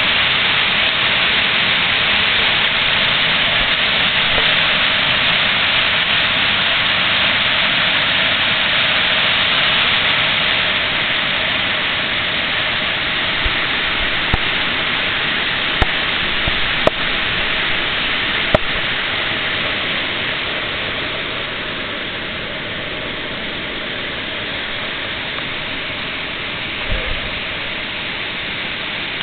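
A mountain stream rushing and cascading over boulders: a steady wash of water noise that drops somewhat in level after about twenty seconds. A few light clicks come midway and a low thump near the end.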